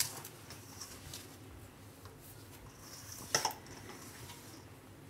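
A hand rubbing and mixing dry wheat flour with spices and oil in a stainless steel bowl: faint rustling and scraping, with a brief louder scrape against the bowl about three and a half seconds in.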